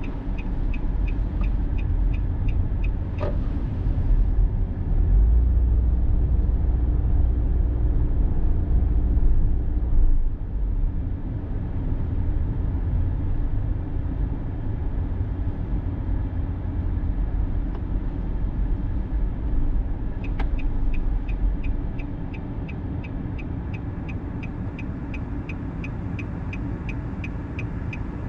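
Inside a car at expressway speed: a steady low rumble of tyres and road, louder between about 5 and 10 seconds in. A turn-signal indicator ticks a few times a second at the start, stops with a click about three seconds in, and starts ticking again about 20 seconds in.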